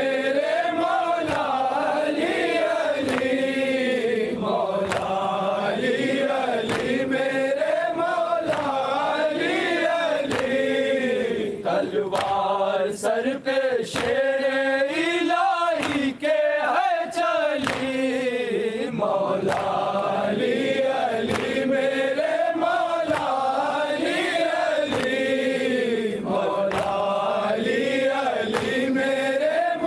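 A group of male mourners chanting a noha (a lament for Imam Ali) together, with voices rising and falling through the melody without a break.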